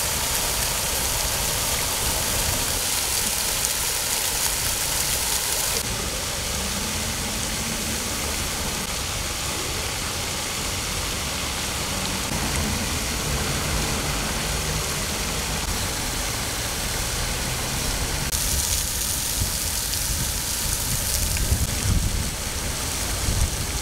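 Fountain jets spraying and splashing down into the basin: a steady rush of falling water, its tone shifting twice.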